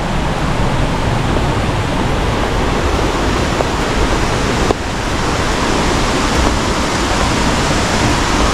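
Jacko Falls waterfall: water falling and rushing in a loud, steady, unbroken noise.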